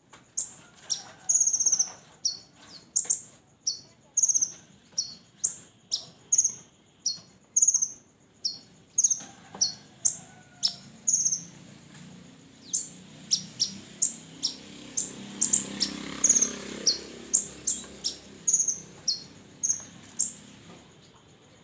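Red-breasted kolibri ninja (konin) sunbird calling: a steady run of sharp, high chirps that sweep downward, about one to two a second, mixed with short buzzy trills.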